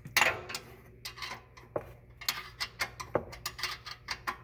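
Metal clicks and clinks from a wrench working a stubborn brake caliper bolt on an ATV. There are a few single clicks, then a quick run of several clicks a second in the second half.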